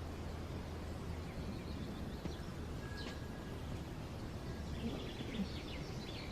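Quiet outdoor ambience: a steady low hum under faint background noise, with a few short distant bird chirps and a quick run of twittering near the end.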